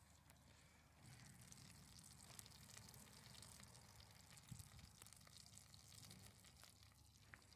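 Faint sizzling and fine crackling of fat heating in a cast iron Dutch oven.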